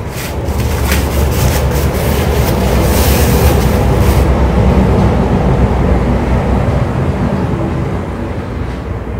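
A loud low rumble that swells and then fades over several seconds. During the first four seconds it is joined by the crackle of a paper napkin being crumpled in the hand.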